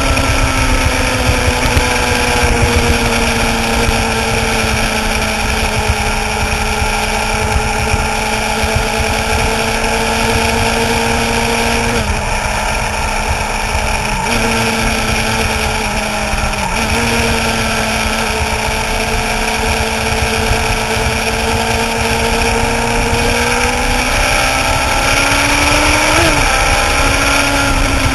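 Suzuki GSX-R sportbike's inline-four engine running at a steady cruising speed over heavy wind rush. The engine note dips briefly a few times midway and rises in pitch near the end.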